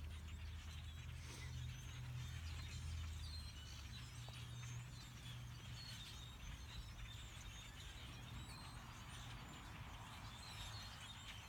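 A huge flock of blackbirds calling at a distance: a faint, continuous chatter of many overlapping high chirps, over a steady low rumble.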